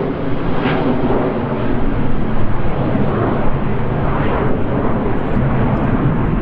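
Jet engines of a Boeing 737-800 airliner, a steady rumbling roar that grows slightly louder toward the end.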